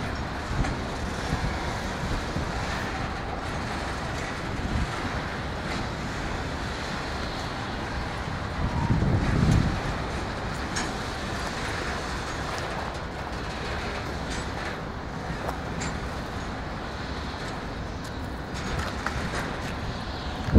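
Freight train rumbling on the tracks, a steady noise of wheels and diesel locomotive engine, with a louder low swell about nine seconds in.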